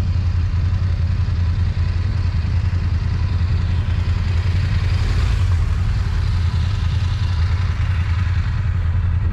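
BMW motorcycle engines running with a steady low rumble, mixed with road and wind noise.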